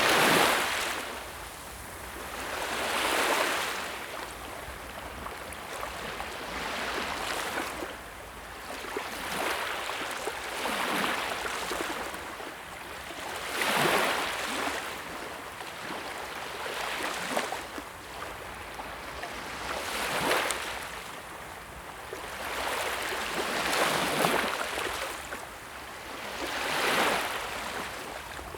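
Sea waves washing onto a shore, one swell of surf every three to four seconds over a steady hiss of water.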